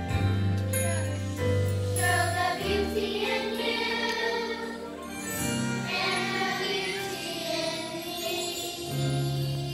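A children's choir singing to instrumental accompaniment, with held bass notes underneath.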